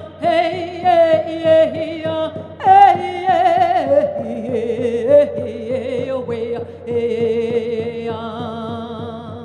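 A woman singing a Navajo song, holding long notes with wide vibrato that move lower about four seconds in, over a steady low beat.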